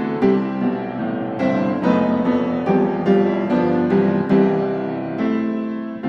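Background piano music: a gentle piece of single struck notes, about two a second, each fading as the next comes in.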